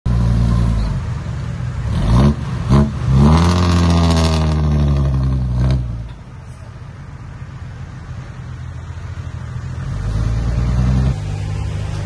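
An engine revving: two quick blips about two seconds in, then a longer rev that climbs and holds before dropping off near six seconds. After that it runs low and quieter, building up again near the end.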